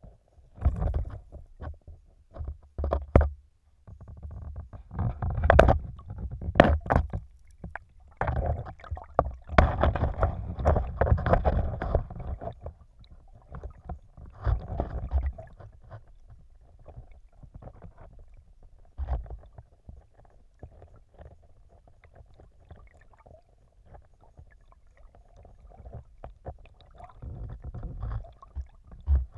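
Shallow stream water heard underwater through a GoPro's waterproof housing: a muffled low rumbling and gurgling that swells and fades in surges, with scattered sharp knocks.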